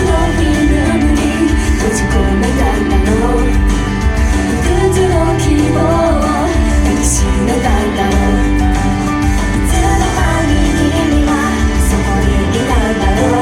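Live idol pop performance: a loud pop band track with female vocals singing over it.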